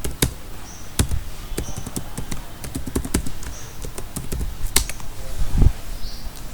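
Scattered clicks and taps of computer keys, irregular and close to the microphone, with a dull knock about five and a half seconds in.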